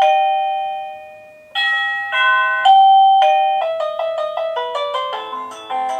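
Zethot wireless doorbell receiver playing its electronic chimes while being stepped through its 36 chime tunes: a ringing bell-like note fading away, then a few slower chime notes, then from about three and a half seconds in a quick tune of many short notes.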